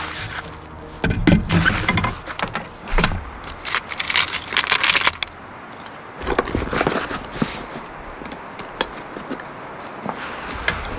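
Fishing gear being handled: rustling and clattering as a rod is slid out of its fabric sleeve and tube, then metal spinner lures clinking in a plastic tackle box, with scattered sharp clicks near the end.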